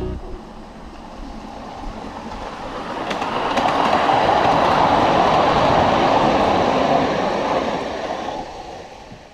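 A 7¼-inch gauge ride-on miniature train, led by a CN-liveried diesel-outline locomotive, running past on its track with a steady rolling noise that builds to its loudest about halfway through and then fades away.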